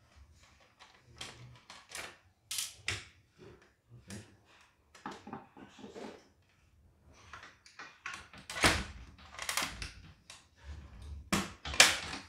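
Screwdriver and plastic casing parts of a CNY embroidery machine being handled during disassembly: irregular clicks, knocks and scrapes as screws are worked and a plastic side panel is pried off the frame. Louder clatters come about eight seconds in and again near the end.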